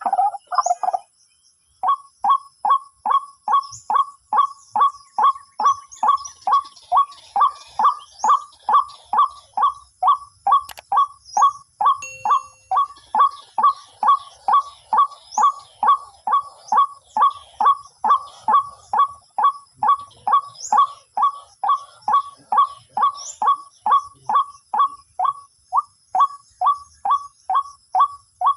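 White-breasted waterhen (ruak-ruak) calling: a steady run of short, identical croaking notes, about two a second. It starts about two seconds in, after a brief pause, and keeps an unbroken even rhythm, as from a lure call played to draw the birds.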